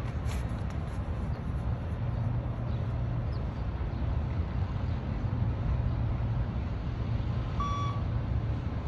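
One short, clear electronic beep from a beep-test (multistage shuttle run) recording near the end, marking the end of a shuttle, over a steady low rumble of wind on the microphone.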